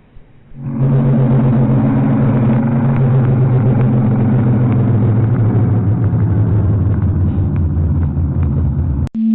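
Low, loud droning alarm tone of an emergency alert with a rough buzzing edge. It starts about half a second in, holds steady, and cuts off suddenly near the end.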